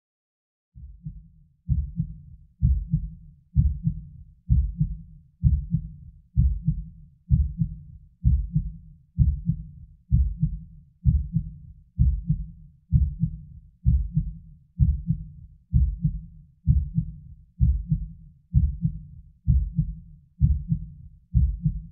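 Heartbeat sound effect: a deep, steady lub-dub thump repeating a little faster than once a second, fading in about a second in.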